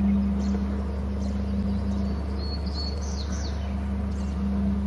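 A few short, high bird chirps a little past the middle, over a steady low hum with a drone that fades briefly and comes back.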